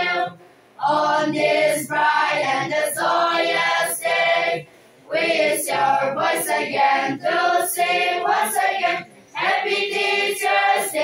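A group of schoolgirls singing together as a choir, in phrases broken by short breaths: one just after the start, one about halfway through and one near the end.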